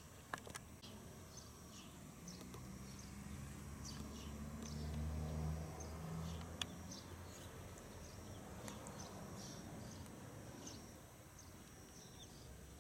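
Quiet outdoor ambience: small birds give short, high chirps at irregular intervals. A low engine hum swells and fades in the first half, loudest about five seconds in. Two sharp clicks come, one just after the start and one about halfway through.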